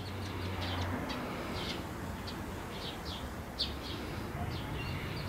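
Small birds chirping: short high calls repeating about every half second, over a low steady rumble.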